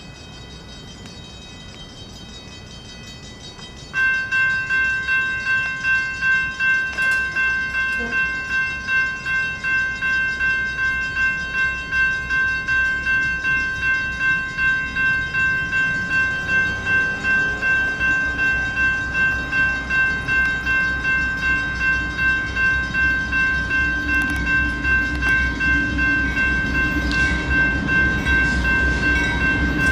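NEG electronic railroad crossing bells start ringing suddenly about four seconds in, striking steadily about twice a second as the crossing activates. A diesel freight train approaches under the bells, its low rumble growing through the second half.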